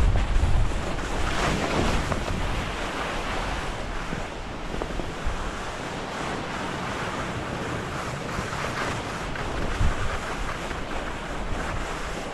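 Skis hissing steadily over snow on a downhill run, with wind buffeting the camera microphone, the wind rumble strongest in the first second.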